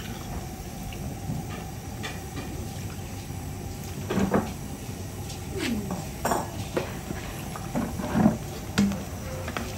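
Kitchen clatter of a utensil knocking against a pot of chicken curry as it is stirred: scattered knocks and clinks. A few short falling-pitch sounds come between about four and nine seconds in.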